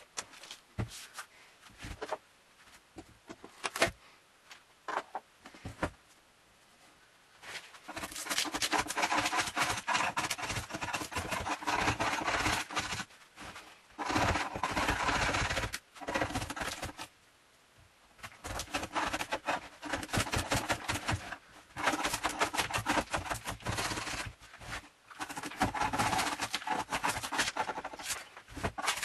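Scattered knocks and clicks as the wooden tabletop is handled, then a hand blade rapidly scraping old veneer and finish off the wood in long runs of quick strokes, stopping briefly several times.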